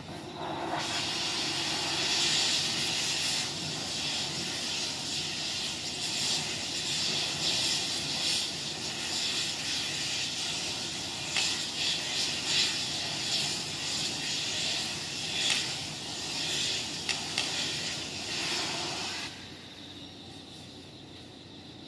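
Machinery at a night-time railway track work site giving a loud, steady hiss over a low rumble. It starts about a second in, rises and falls with a few sharper peaks, and cuts off a few seconds before the end.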